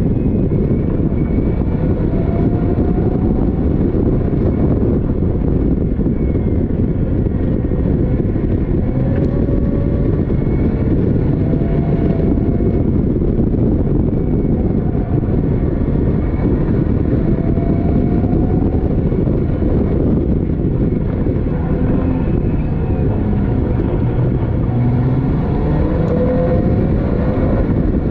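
Caterham Seven race car engine running hard at racing pace, heard from the open cockpit with a heavy rush of air and road noise; its pitch climbs several times as it pulls through the gears.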